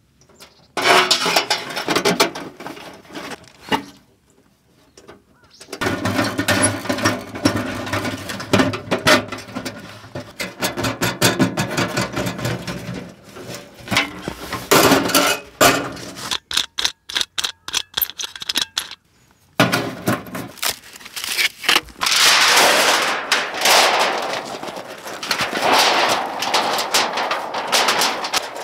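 Titanium wood-stove parts, a metal firebox and stovepipe, being handled over gravel: repeated metallic knocks and scrapes with crunching stones, and a quick run of clicks near the middle.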